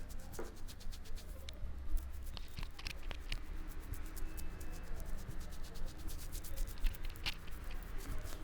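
Hands massaging a head and face: quick rubbing and tapping on hair and skin, a dense run of small crisp clicks with a few sharper ones.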